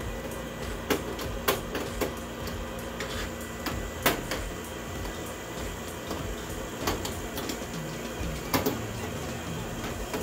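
Scattered sharp clicks and knocks of a furnace's access panel being handled and taken off, over the steady hum of the furnace's small motor running.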